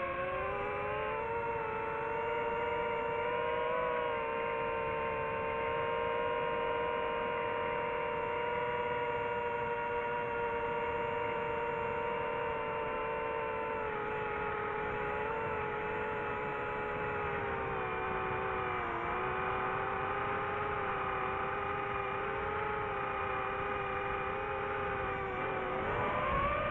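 DJI FPV drone's motors and propellers whining in flight, recorded on board the drone. The pitch holds steady, sags a little about two-thirds of the way through, then dips and climbs sharply near the end.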